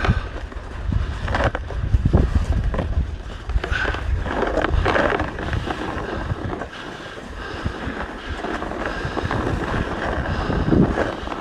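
Edges scraping and sliding over icy, hard-packed snow on a ski run, with wind buffeting the microphone and an uneven, continuous rasp.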